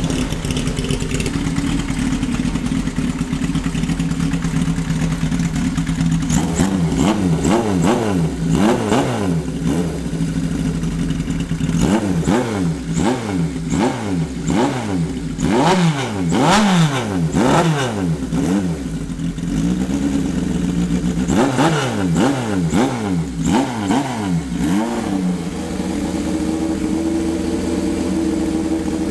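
Vintage Japanese motorcycle engine idling, then blipped repeatedly from about six seconds in, rising and falling in pitch roughly once a second, before settling back to a steady idle near the end.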